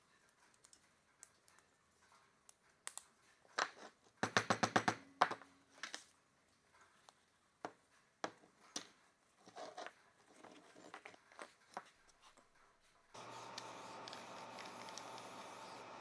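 Handling sounds of a cast brass belt buckle and a leather belt being fitted together by hand: scattered small clicks, taps and rubs, with a quick rattle of metal clicks about four seconds in. Near the end a steady hum sets in abruptly.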